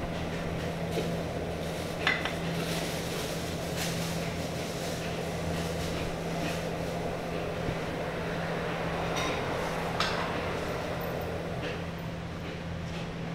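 Small eatery's ambience: a steady hum with a few sharp clinks of dishes and utensils, the loudest about two seconds in and another about ten seconds in.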